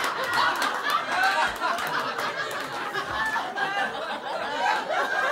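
Audience laughing, many voices at once at a steady level.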